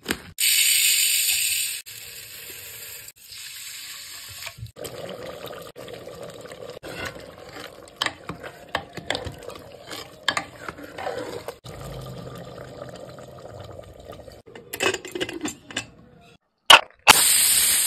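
Ladle stirring rice and chicken masala in an aluminium pressure cooker, scraping and knocking against the pot. A short, loud hissing rush comes just after the start and another near the end.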